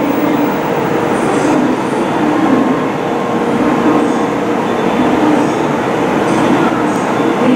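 N700-series Shinkansen train running through a curve: a steady, loud rumble of wheels and running gear, with faint brief high squeals now and then.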